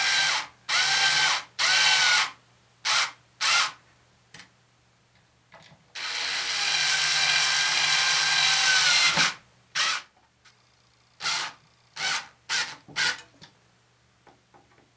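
Cordless electric screwdriver driving small screws into a wooden antenna boom: a few short whining runs, one long run of about three seconds midway, then a string of brief blips as the screws are snugged down.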